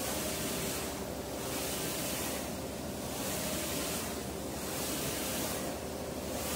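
UV flatbed inkjet printer running, its print carriage sweeping back and forth over the metal panel: a steady machine hum with a hiss that swells and fades about every second and a half as the carriage passes.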